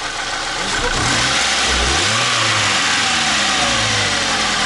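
Ford Scorpio's four-cylinder engine running with the hood open. Its revs rise and fall once about two seconds in, then it settles to a steady run: the engine runs fairly well.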